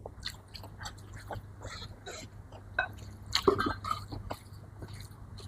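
Close-up eating sounds: chewing and mouth noises with many short clicks, and a brief louder throat sound a little past halfway.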